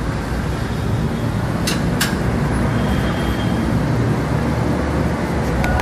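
Steady low rumble of a running vehicle engine or traffic. Two sharp metallic clicks come about two seconds in, from tools working on the motorcycle's rear shock mount.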